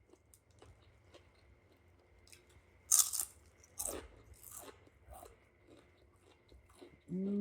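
Close-up chewing of a crunchy snack, small mouth clicks throughout, with a loud crunching bite about three seconds in and a few softer crunches over the next second or two. A short hummed "mm-hmm" comes at the very end.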